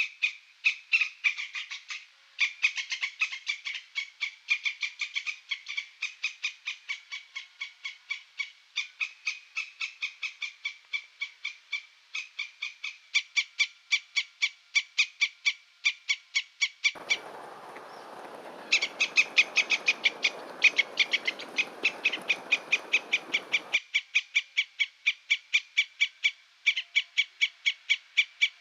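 An animal calling in a rapid, even series of short chirps, about three to four a second, kept up throughout with a few brief pauses. Partway through, a steady hiss joins for several seconds.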